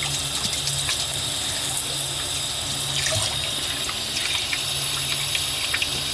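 Water running steadily from a tap into a sink while metal clock parts are rinsed, with a few faint clicks.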